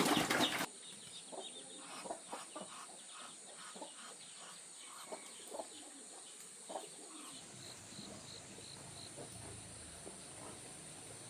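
Chickens clucking in short, scattered calls over a steady high insect drone, with a few quick high chirps near the end. A louder noisy sound cuts off suddenly less than a second in.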